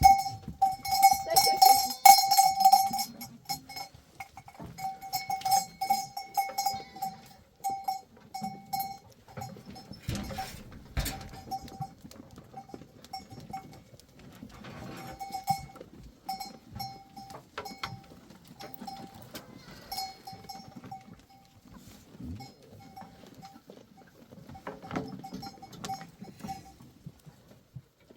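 Metal livestock bell clanking in irregular rings, loudest in the first three seconds and then ringing on and off in scattered strokes.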